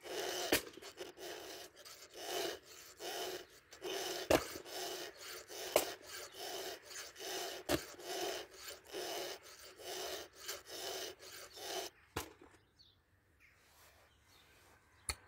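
Chainsaw file rasping across the cutter teeth of a Husqvarna 572 XP's chain in even strokes, about one and a half to two a second, with a few sharp clicks among them. The filing stops about twelve seconds in.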